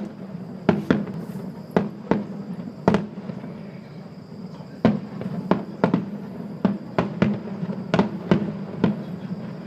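Aerial fireworks shells bursting in a display: about fifteen sharp bangs at irregular intervals, with a pause of nearly two seconds about halfway through.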